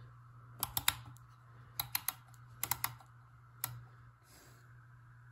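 Shutter speed dial of an Asahi Pentax 6x7 medium-format camera being turned by hand. It gives about ten small sharp detent clicks in three quick bunches and then one last click, as it is set to 1/1000 second.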